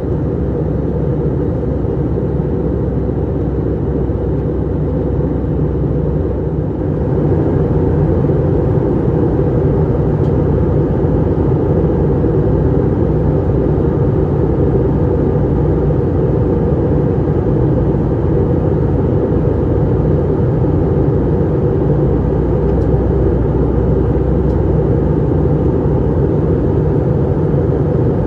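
Steady drone of an Airbus A319 in the climb, engine noise and rushing air as heard inside the cabin beside the wing. It grows a little louder and brighter about seven seconds in.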